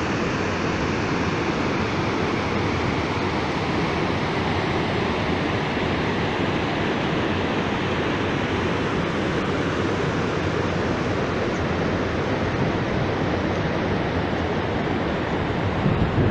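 Small waterfall rushing steadily over rock ledges into a pool, a dense even wash of water noise. Wind buffets the microphone near the end.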